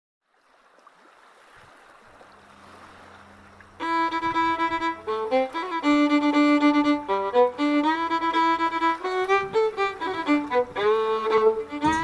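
Background music: a soft rising hiss and a low drone, then about four seconds in a violin melody of long held notes with slides between them.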